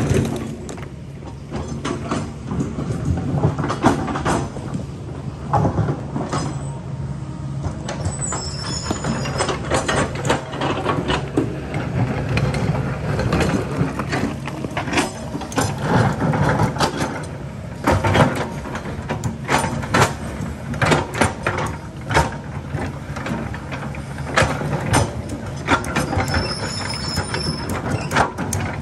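Kobelco excavator's diesel engine running steadily while the machine works, with repeated clanks, knocks and scraping of the steel bucket against rock and stone.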